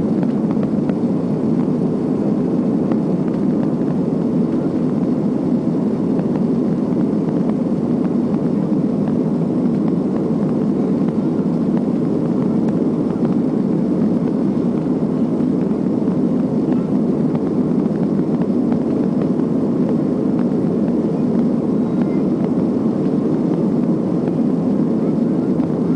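Steady cabin noise of a Boeing 737-300 climbing out after takeoff: the low, even drone of its CFM56-3 engines and airflow heard from inside the cabin.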